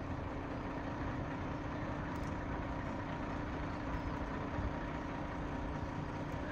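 Fuel bowser truck running steadily while pumping fuel through a hose into an aircraft's wing tank: a constant engine-and-pump hum with a held tone.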